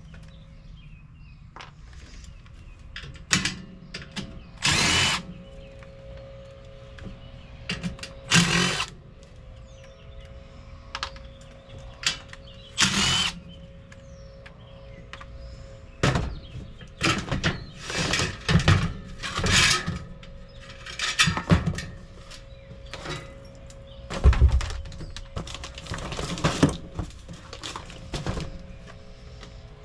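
Power drill-driver run in short bursts of up to about a second, again and again, among knocks of tools on metal.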